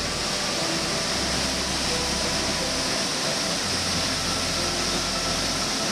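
Waterfall plunging into a pool: a steady, even rushing of falling water.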